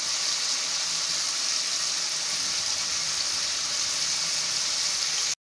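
Goat meat and spice paste sizzling steadily in hot oil in a pan, the meat being fried down (kosha) with a little water and salt; the hiss cuts off suddenly near the end.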